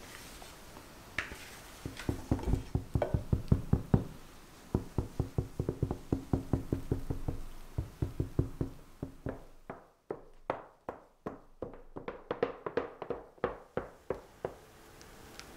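Rapid, regular light knocks on baking equipment, about three or four a second, each with a short ringing tone: a pan or bowl being tapped while cake batter is poured and scraped out. They pause briefly about four seconds in and stop near the end.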